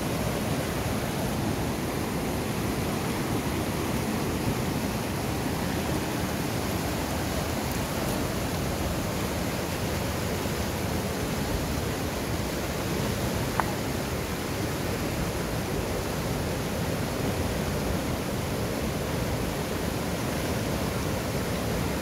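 Fast mountain stream rushing through whitewater rapids over boulders: a steady, unbroken noise of churning water.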